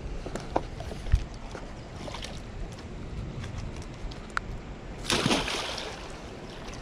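A hooked flathead catfish splashing in shallow water at a rocky bank, with one louder splash about five seconds in. Under it runs a steady low rumble of wind and moving water, and a couple of sharp knocks come in the first second or so.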